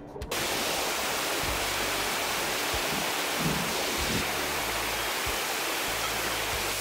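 Steady rush of a small waterfall pouring over boulders in a mountain stream, heard from right beside the falling water, with a few low thumps. Background music cuts off just at the start.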